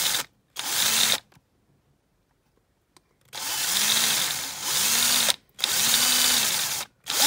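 Electric drill with a 5 mm bit drilling out a rivet in a die-cast toy car's base. It runs in five bursts of about half a second to two seconds, the motor speeding up and slowing in each, with a pause of about two seconds near the start.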